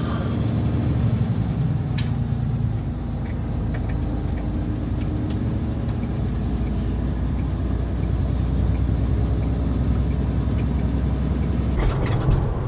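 Semi-truck engine running with a steady low rumble, heard from inside the cab as the truck gets under way. A single sharp click about two seconds in.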